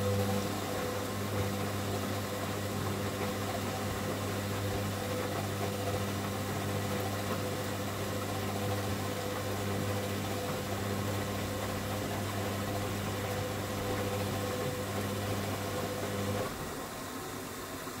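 Hoover front-loading washing machine tumbling a sudsy load during its suds-lock routine, with a steady low electric hum that cuts off suddenly about sixteen and a half seconds in.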